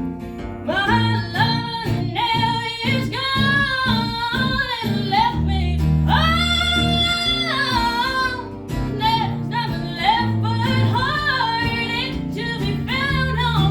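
Live song: singing over acoustic guitar, the voice starting under a second in and holding one long note about halfway through.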